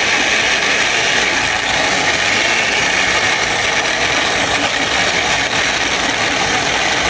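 Electric blender running steadily at full speed, grinding chili peppers: a loud, dense, even whirring that cuts off just after the end.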